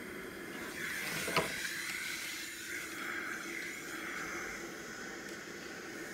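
Steam iron hissing as it presses a folded fabric strap, with one sharp click about one and a half seconds in.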